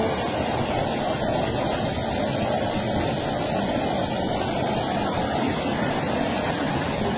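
High-pressure jet of water gushing out of a rocky slope and spraying into mist: a steady rushing noise that never lets up.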